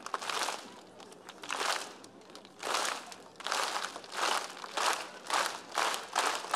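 Large audience applauding in swells of clapping, irregular at first and then coming about twice a second.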